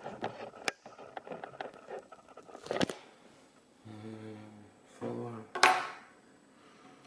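Small metal clicks and taps of a lock cylinder and tools being handled, with a sharp knock about three seconds in. Two short low hums follow, then a brief loud rushing hiss near the end.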